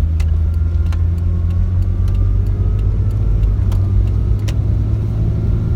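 Road noise from a 1999 Jeep Cherokee XJ driving on worn 33-inch Kumho Road Venture mud-terrain tires, heard from inside the cab: a steady low drone from the tires and drivetrain, with occasional light clicks.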